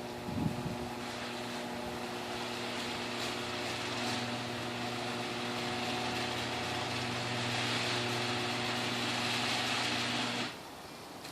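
Electric garage door opener running as a steel sectional garage door travels: a steady motor hum under the noise of the moving door, with a knock about half a second in. The motor stops suddenly about ten and a half seconds in.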